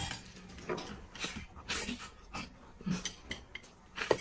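Close-up eating sounds: chewing and wet mouth smacks as someone eats rice and chicken leg quickly, a short smack or click about twice a second, with a sharper tap near the end.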